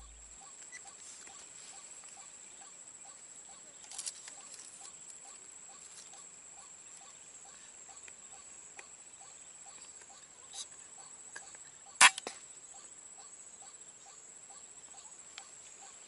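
Quiet outdoor ambience: a steady high-pitched insect drone with faint regular ticking, broken by a few sharp clicks, the loudest about twelve seconds in.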